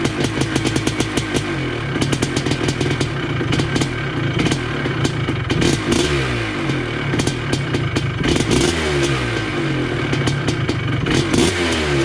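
1980 Honda CR250 Elsinore two-stroke single-cylinder dirt bike engine running and being revved, its pitch rising and falling again and again with a rapid crackle of exhaust pops, freshly started after a decade.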